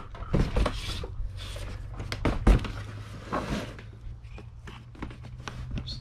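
Handling of a hard vintage typewriter carrying case as it is lifted out of a cardboard box and set down: scattered knocks and clatter, with one loud thunk about two and a half seconds in.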